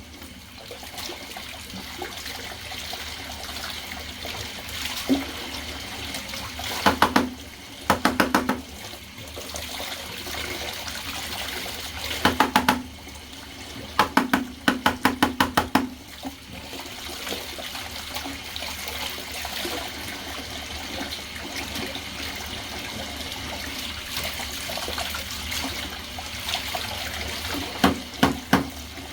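Water running steadily from a bathtub tap as a vacuum cleaner filter is rinsed under it. Several short bursts of rapid knocking come a few seconds apart and are the loudest sounds.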